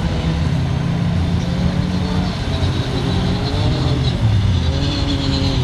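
Autocross race cars' engines running hard on a dirt circuit, their pitch rising and falling as the drivers accelerate, lift and shift.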